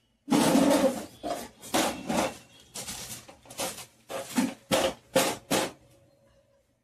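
Stainless-steel two-burner gas stove being dragged and set down: a run of metal scrapes and knocks, the first scrape the longest and loudest, stopping about a second before the end.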